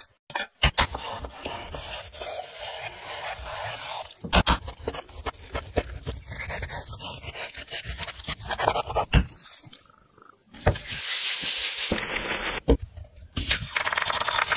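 Kitchen preparation sounds one after another: water bubbling at the boil around potatoes in a steel pot, then a kitchen knife chopping raw chicken breast on a wooden cutting board with sharp knocks, then a knife slicing an onion on the board.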